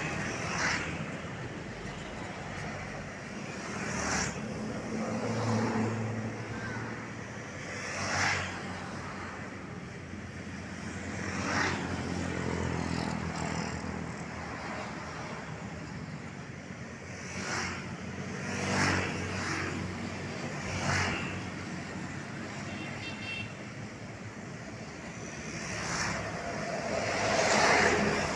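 Light road traffic passing close by: motorcycles and cars go past one after another, each swelling and fading in a few seconds, with the loudest pass near the end.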